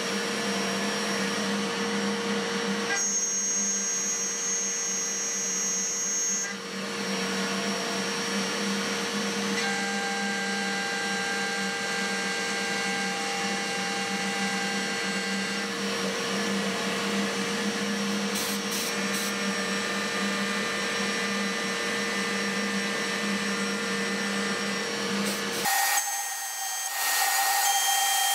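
Spindle of a home-built CNC milling machine turning at 12,000 rpm while a 6 mm four-flute end mill takes a light finishing pass through C45 steel: a steady whine with the hiss of cutting. Near the end the sound changes abruptly to a higher, thinner whine.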